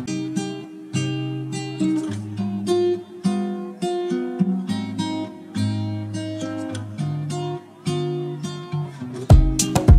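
Background music: acoustic guitar picking and strumming a melody. Loud, sharp percussive hits come in near the end.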